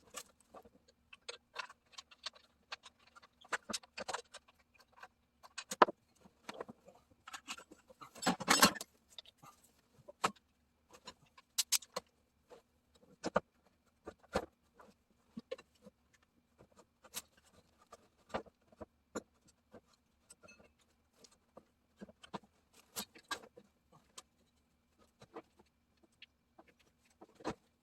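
Irregular clicks, taps and metallic clinks of hand tools and hardware being worked while a push-mower engine is bolted onto a mower frame, with a louder cluster of rattling about eight seconds in. A faint steady hum runs underneath.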